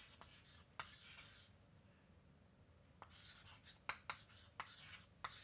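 Faint chalk writing on a chalkboard: scratchy strokes of the chalk with a few sharp taps as it meets the board.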